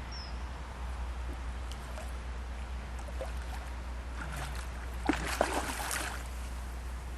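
A hooked common carp splashing at the river's surface while it is played: a brief burst of splashes with two sharp slaps about five seconds in, over a steady low hum.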